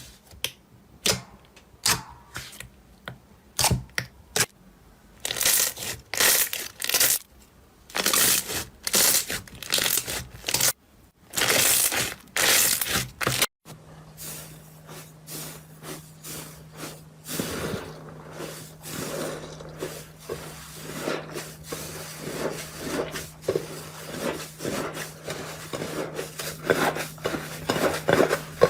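Slime squeezed and stretched close to the microphone. First come sharp clicks and pops, then longer crackling squishes. After a cut about halfway, there is a denser run of small crackles and pops over a low steady hum.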